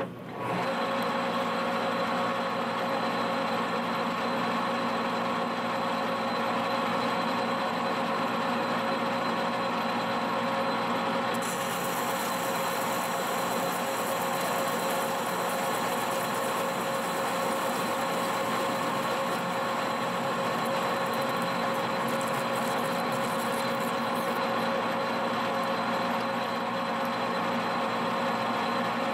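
Heavy manual engine lathe, a Monarch, running under load while taking a heavy roughing pass on a steel bar: a steady machine drone with several held whining tones, starting suddenly just after the beginning. A higher hiss joins for a stretch in the middle.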